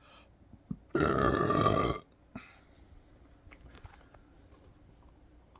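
A man burping once, loud and rough, for about a second.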